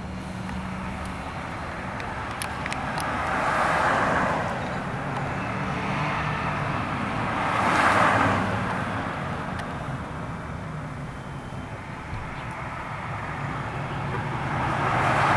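Road traffic: passing cars, the noise swelling and fading three times (about four seconds in, about eight seconds in, and near the end), over a low steady hum.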